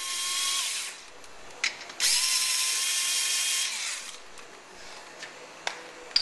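Small cordless power tool spinning a socket to back out brake caliper bolts: a short run at the start, then a longer run of about a second and a half that winds down at the end. A few light metallic clicks follow.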